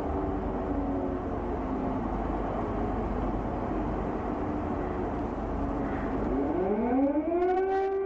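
Civil-defence air-raid siren sounding, an air-attack warning. Over a steady noisy hiss, broken wavering siren tones are heard at first. Then, about six seconds in, a siren winds up in pitch and settles into a steady held tone near the end.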